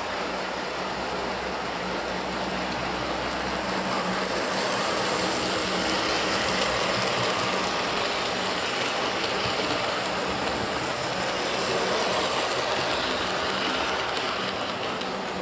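Model railway train of coaches running past on the layout track: a continuous rumble of wheels on rail with a steady low hum, growing louder about four seconds in and easing off near the end.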